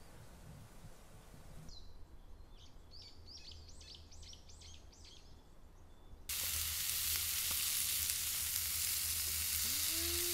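A bird sings a quick run of about eight repeated high notes. Then, about six seconds in, a hamburger patty starts sizzling steadily in an iron skillet over a campfire.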